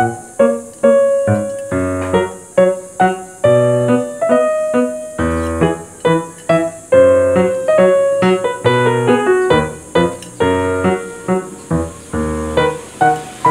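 Background piano music: a light melody of struck notes over deeper bass notes, each note starting sharply and fading.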